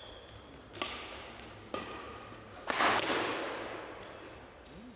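Badminton racket strikes on a shuttlecock during a rally: three sharp hits about a second apart, the third much the loudest and echoing on in the large hall.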